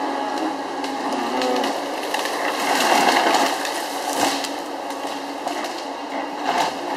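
Gremo 1050H forest harvester working: its engine and hydraulics drone steadily while the harvester head grips and feeds a felled tree trunk. Short scrapes and cracks come from the head, with a few brief louder swells.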